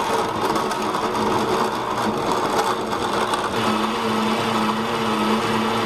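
Oster blender motor running at low speed, blending frozen berries, spinach, strawberries and milk into a smoothie. The rough grinding of frozen fruit chunks gives way to a steadier hum about three and a half seconds in, as the mix turns smooth.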